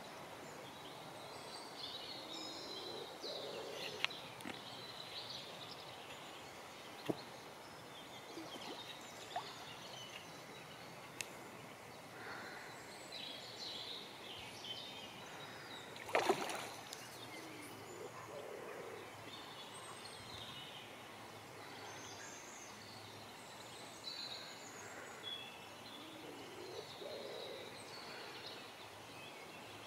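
Woodland ambience: several songbirds singing and calling over a faint steady hiss, with a few sharp clicks and one brief louder knock about halfway through.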